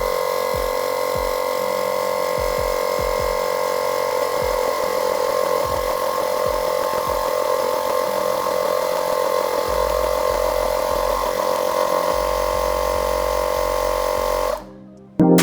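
70mai Air Compressor Lite, a portable car tyre inflator, running with a steady high motor whine. It cuts off suddenly near the end.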